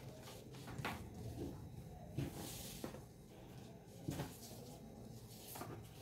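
Faint rustling of fabric and a cloth tape measure being handled and laid along it on a table, with a few soft knocks scattered through.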